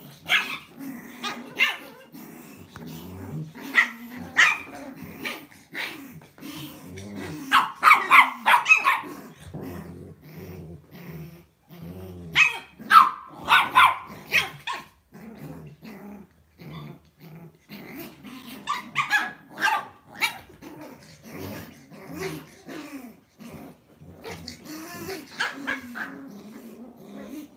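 Lhasa Apso dogs play-fighting, growling throughout with short, sharp barks and yips. The loudest flurries of barking come about eight seconds in and again around thirteen seconds.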